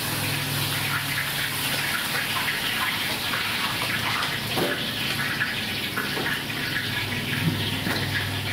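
Kaja pieces deep-frying in a large kadai of hot oil: a steady sizzling hiss with a low hum underneath. A few short knocks from the slotted ladle against the pan come about halfway through and later.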